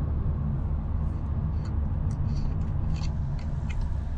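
Steady low rumble of a car's road and engine noise heard from inside the cabin, with a few faint ticks and clicks over it.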